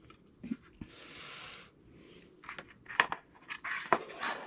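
Cardstock paper craft box being handled on a wooden table: a soft paper rustle about a second in, then several light taps and clicks as the lid is set down and the panels are touched.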